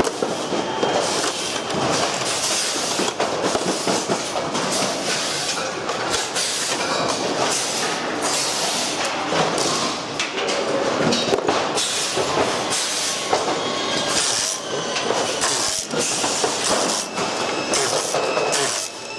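Dense, continuous clattering and rattling of plastic and metal parts being handled and pulled loose as a pachinko machine's frame is stripped by hand.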